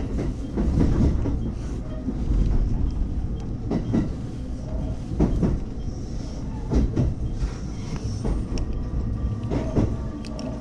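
An electric local train running on the rails, heard from inside its driver's cab: a steady low rumble as it slows, with several sharp clacks of the wheels over the track, spaced unevenly a second or more apart.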